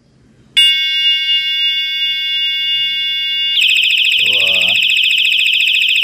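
Battery-powered electronic bicycle bell sounding loudly. A steady shrill tone starts about half a second in, and about three seconds later it switches to a fast warbling, alarm-like tone.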